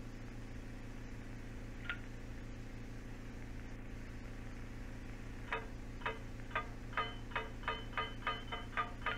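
A steady low hum with a few sharp ticks all on one note. About halfway through, the ticks turn into a regular run that speeds up to about four a second.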